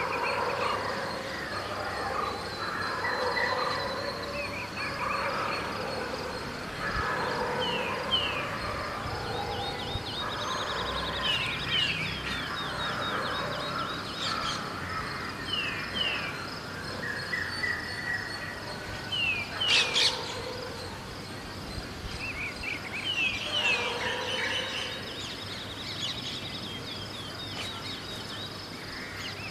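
Early-morning bird chorus: many birds chirping and calling, with repeated short falling chirps, over a steady high insect trill and a low background hum of city ambience. A single sharp, loud sound stands out about two-thirds of the way through.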